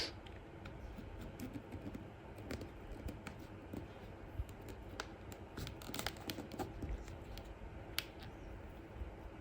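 Faint scattered clicks and scratching of a pry tool working an iPhone 6S screen loose from the adhesive still holding one side, with a few sharper ticks about halfway through and near the end.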